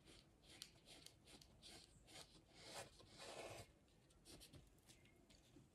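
Faint scratchy rubbing of an oil pastel stick stroked over paper in a series of short strokes, the longest about three seconds in, as red colour is blended into a drawing.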